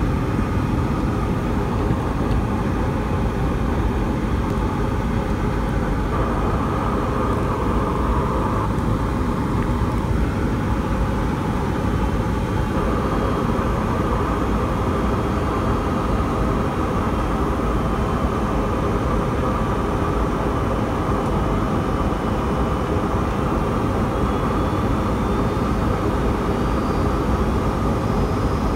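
Boeing 757-200's jet engine and airflow noise heard inside the cabin over the wing during descent on approach: a steady rush with a higher hum that comes in about six seconds in, fades a few seconds later and returns about thirteen seconds in.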